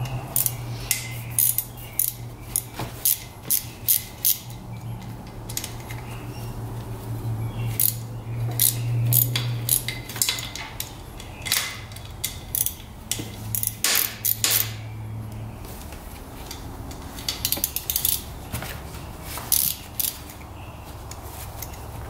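Hand ratchet wrench clicking in short irregular runs as bolts are loosened on the engine cover of a Polaris Magnum 425 ATV, with metal tool clinks. A steady low hum underneath stops about fifteen seconds in.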